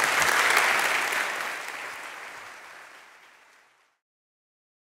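Audience applauding, the clapping fading away over about four seconds until it stops in complete silence.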